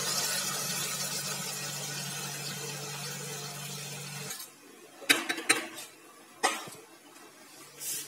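Water poured into a hot steel wok of fried bottle gourd and potato in spiced paste, sizzling and slowly fading; about four seconds in it stops abruptly, followed by a few clinks of steel utensils against the wok.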